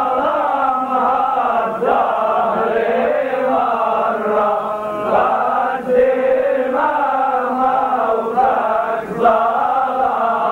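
Unaccompanied Lebanese zajal chanting in a mourning style: long, wavering held notes of the voice, sung in slow melismatic lines with no clear words.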